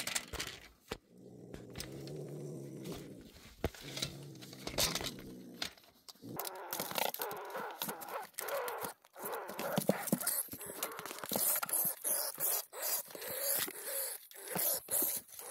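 Cornered Virginia opossum growling and hissing with its mouth open in a defensive threat. A low growl fills the first half, then a metal grabbing pole scrapes and knocks against the floor and the dresser.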